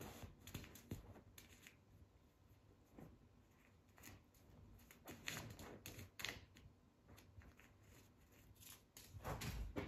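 Faint rustling of a pillowcase and light taps as a kitten paws at a sweet, with a louder low rustle near the end.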